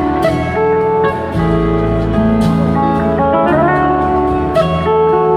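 Live blues-rock band: electric slide guitar playing long sustained notes that glide up in pitch, over bass, drums and cymbals.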